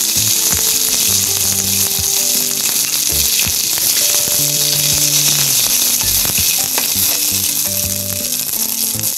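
Curry leaves, mustard seeds and urad dal sizzling in hot oil for a tempering, a loud steady hiss with a few small pops, while a wooden spatula stirs them in the pan.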